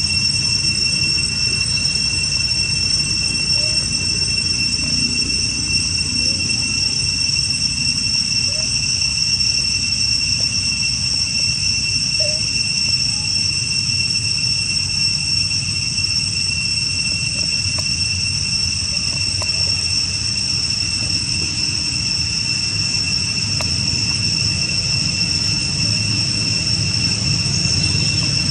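Steady, high-pitched drone of forest insects over a low rumble, unchanging throughout.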